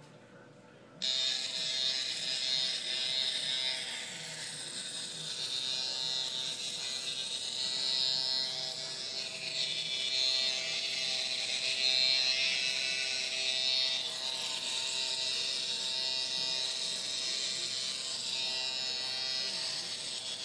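Electric razor buzz from a shaver app played through an iPhone's speaker while the phone is rubbed along the jaw and neck. It starts suddenly about a second in and runs steadily, its level wavering a little.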